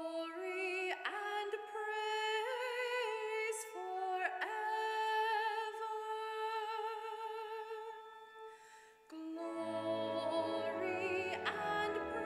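Sacred music: a solo voice sings with a marked vibrato over sustained accompanying chords, most likely the sung responsorial psalm after the first reading. Just after a brief dip about nine seconds in, deeper bass notes join the accompaniment.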